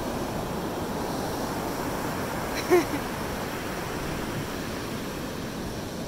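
Ocean surf breaking and washing up the sand, a steady rush of waves. A brief voice sounds once, just short of halfway through.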